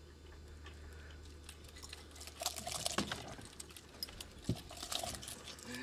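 Light clicks and rattles of pliers and a lure's treble hook being worked free of a caught fish's mouth, scattered through the second half, over a steady low hum.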